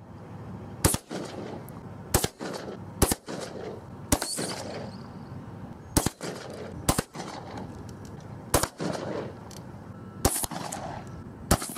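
Shotgun firing Stendebach II slugs: nine sharp shots at uneven gaps of one to two seconds, each trailing off in a short echo.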